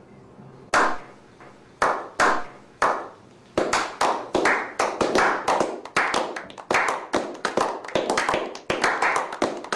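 Sharp hand claps with a reverberant tail, at first a few irregular single claps, then coming faster and evenly about three and a half seconds in, building up as the intro of an electronic dance music track.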